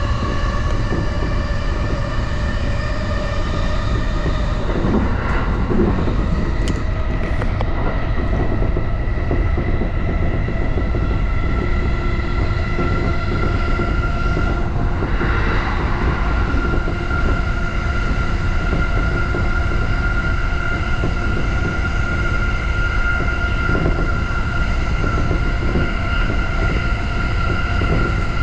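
JR Yokohama Line E233-6000 series electric train running between stations, heard from inside the car: a steady low rumble of wheels on the rails under a steady whine from the traction motors.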